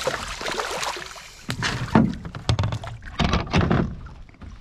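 Several short, dull knocks and thumps on a small fishing boat, coming in quick clusters after a moment of hiss.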